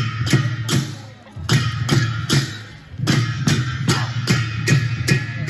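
Sakela dance music with a steady beat of about two and a half strikes a second over plucked strings and a strong bass. The music dips briefly twice, about a second in and again near three seconds.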